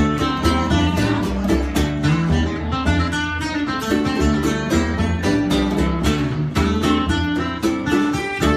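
Music led by guitar with plucked strings and a bass line, with a steady beat.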